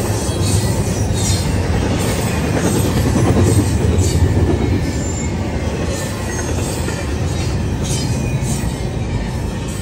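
Double-stack intermodal well cars rolling past: a steady, loud rumble of steel wheels on rail, with clicks from wheels crossing rail joints and brief high wheel squeals. The sound eases slightly near the end.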